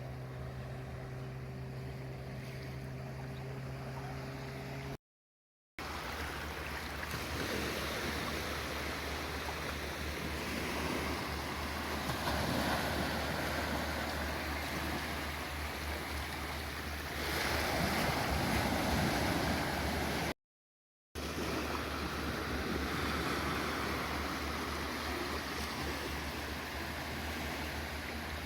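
Sea waves washing in and out on a beach, swelling and fading in surges. In the first few seconds a steady low motor hum runs under the water noise.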